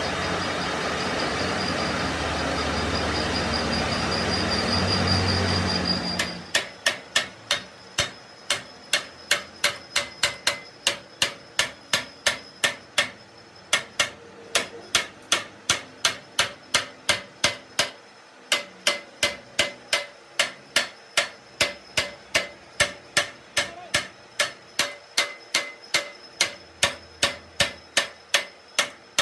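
A machine runs steadily and stops about six seconds in. A hammer then strikes metal in a fast, even rhythm, each blow ringing briefly, with two short pauses along the way.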